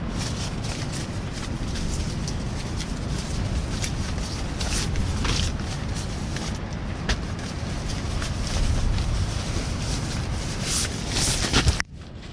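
Rustling and crinkling of nylon stuff sacks and clothing being handled, many short rustles over a steady low rumble of wind on the microphone; the sound drops away abruptly near the end.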